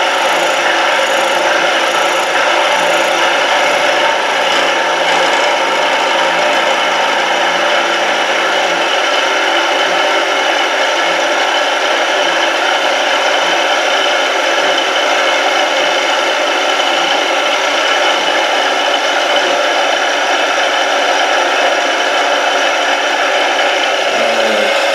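Indexable end mill with APMT 1003 carbide inserts cutting a metal block on a CNC mill: a steady, even scraping cut with several steady ringing tones in it. It is a slow-feed finishing pass.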